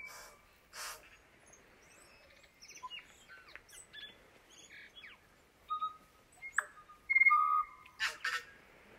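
An unidentified forest songbird singing a varied string of short whistles, clicks and raspy notes, with its loudest, longer whistles about seven seconds in.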